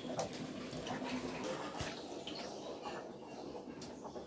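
Water dripping and splashing faintly as hands squeeze chopped mushroom pieces out of a steel bucket of water, pressing out the excess water, with a few light clicks.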